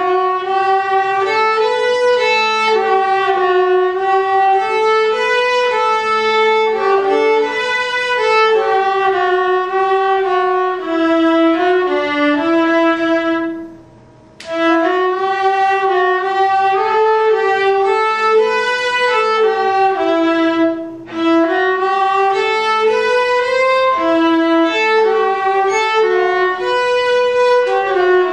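A viola and a second bowed string instrument playing a duet, a flowing melody in phrases that breaks off briefly about 14 seconds in and again just before 21 seconds.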